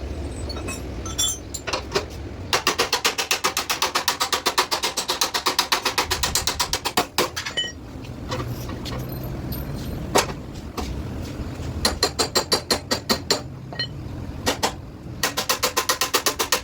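Rapid, evenly spaced metal strikes with a ringing tone, roughly seven or eight a second, in three bursts of a few seconds each: steel being hammered or worked with a power tool during chassis repair.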